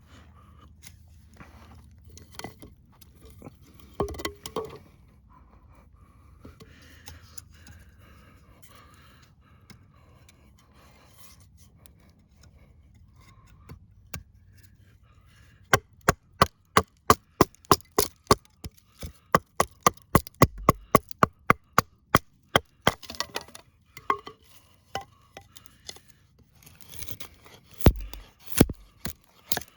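Bark River Tope Recon, a 7.5-inch CPM-3V steel knife, chopping into wood: a fast, even run of sharp strikes, about three a second for some seven seconds starting about halfway in, then a few looser strikes near the end. Before the run, only quieter handling knocks and rustling.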